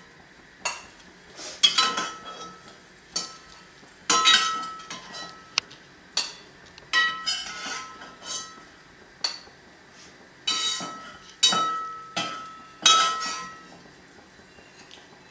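Slotted metal spatula scooping peas out of a nonstick pot and knocking them off into a bowl: a series of sharp metal clinks and scrapes, about a dozen, each ringing briefly.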